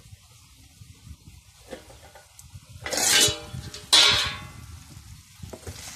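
Chicken sizzling as it fries in a pan, a faint steady sizzle, with two loud ringing metallic clanks of the cookware about three and four seconds in.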